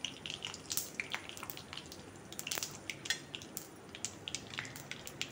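Dried red chillies frying in hot coconut oil in a metal kadai: a faint sizzle with many small irregular crackles and pops.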